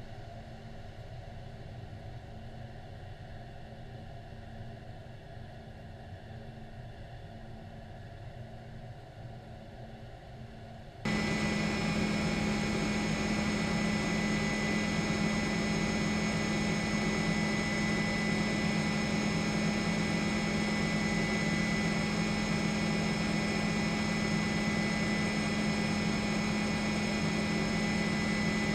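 Steady engine drone of an aircraft heard from aboard it, with a steady whine over a low hum. It jumps much louder about a third of the way through and then holds steady.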